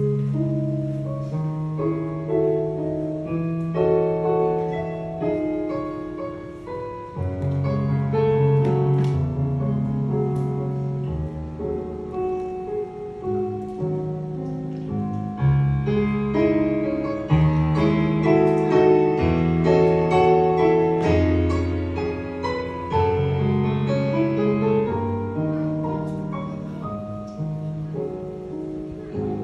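Piano introduction to a slow song: sustained chords over a bass line, with no voice yet, easing off a little near the end.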